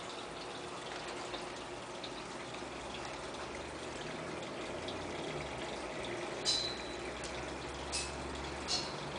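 Steady sound of running water circulating in a 200-gallon aquarium. Three short clicks come in the last few seconds.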